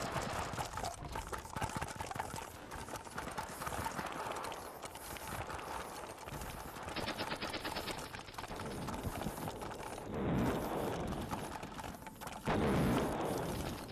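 Battle sound effects: a steady crackle of rapid gunfire, with a quick rattling burst about seven seconds in and two louder swells about ten and twelve and a half seconds in.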